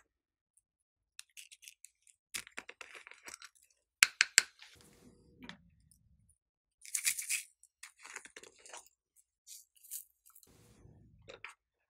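Small plastic frog-shaped containers handled over a glass dish of slime: scattered clicks and taps, with a quick cluster about four seconds in, and a few short rattling hisses.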